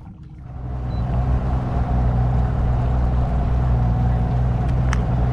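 Small fishing boat's motor running steadily as the boat travels, with wind and water noise; the sound rises in over the first second.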